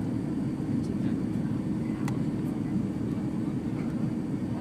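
Steady low roar of a Boeing 757-200 airliner heard from inside the passenger cabin: engine and airflow noise at an even level, with a faint tick about two seconds in.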